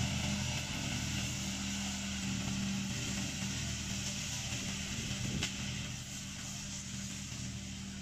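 Black Shark 800 remote-controlled mower's engine running steadily, growing fainter as the mower drives away.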